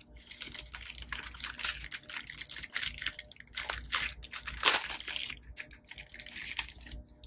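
Clear plastic bag crinkling and rustling in irregular crackles as hands open it and pull out a camera neck strap.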